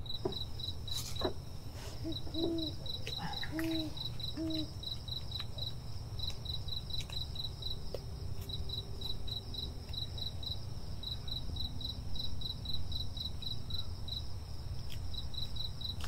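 Crickets chirping in a steady pulsed rhythm, about three chirps a second with brief pauses, over a low steady rumble. A few short, low animal calls come in about two to four seconds in.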